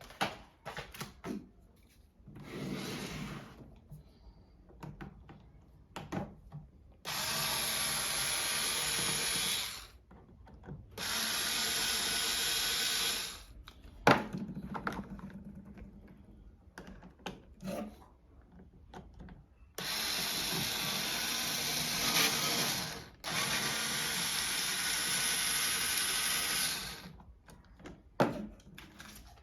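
A small power drill or electric screwdriver runs in four bursts of two to three seconds each, with a high steady whine. Between the bursts there are handling clicks and one sharp knock.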